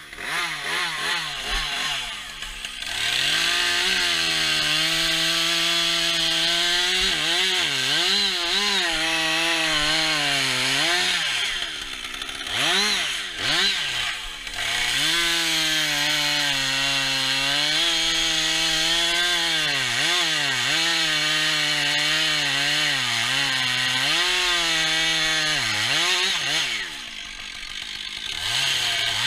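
Holzknecht HS 410 two-stroke chainsaw running at high revs while cutting wood. Its engine note dips and recovers repeatedly as the chain bites, and it drops to a lower, quieter note near the start and again near the end.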